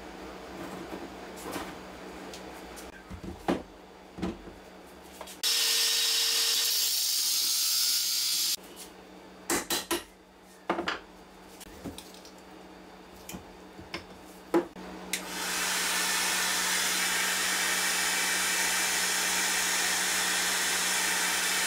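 A metal microwave-oven transformer knocked and shifted about on a workbench, with a loud hissing burst of about three seconds early on from a tool. From about fifteen seconds in, a heat gun blows steadily, aimed at the transformer to heat it.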